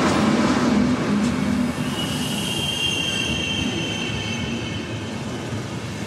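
Randen electric train running in along the track with a steady rumble, its wheels squealing high for a couple of seconds starting about two seconds in.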